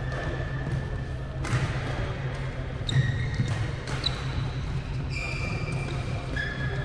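Badminton rackets hitting shuttlecocks in a drill, several sharp hits, with short high squeaks of sports shoes on the court floor between them.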